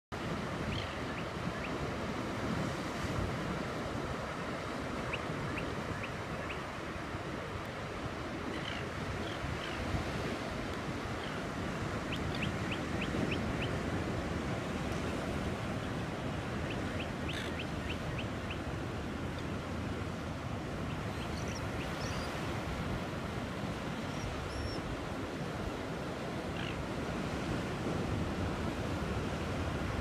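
Surf breaking on a rocky shore, with wind over the microphone: a steady rushing. Short, high bird calls come and go over it, including a quick run of them about 12 s in and again about 17 s in.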